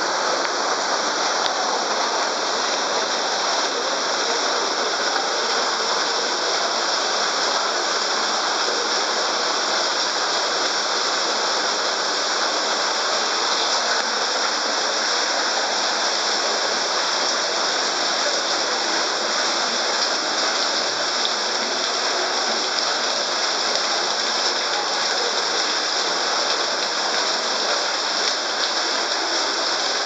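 Waterfall pouring into a pool, a steady, even rush of splashing water.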